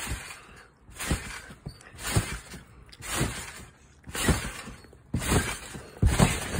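A person bouncing on a trampoline, about once a second, seven bounces in all. Each bounce is a low thump of the mat with a rattling jangle of the springs, and the last two are the loudest.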